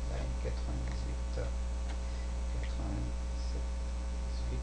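Steady electrical mains hum with a few faint scattered clicks.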